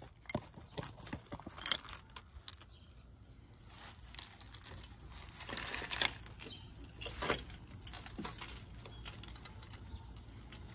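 Plastic sheeting crinkling and rustling as it is handled around a smashed ceramic vase, with scattered irregular crackles and clicks. The sharpest click comes a couple of seconds in.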